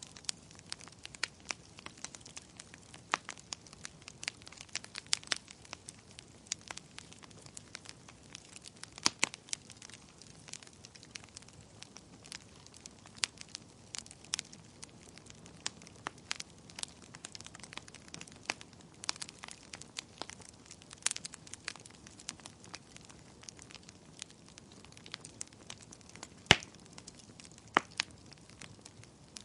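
Wood fire in a fireplace crackling, with irregular sharp pops scattered over a faint steady hiss; one louder pop near the end.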